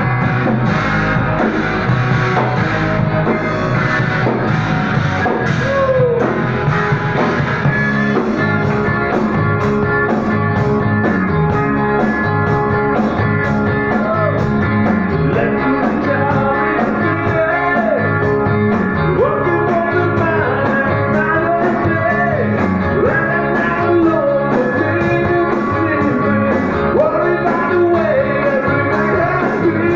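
Live rock band playing electric guitars, bass and drums, coming in at full volume at the start with a steady drum beat. A man's singing joins in from about fifteen seconds in.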